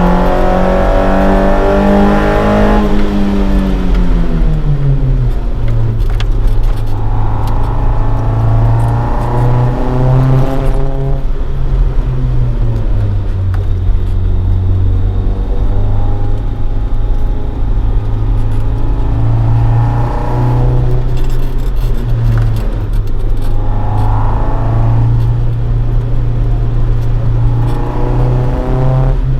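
Toyota AE86 Sprinter Trueno's swapped AE111 20-valve 4A-GE four-cylinder, breathing through individual throttle bodies and a Fujitsubo Legalis R exhaust, pulling the car along. The revs fall away about three seconds in, then climb and drop again several times as the throttle is worked.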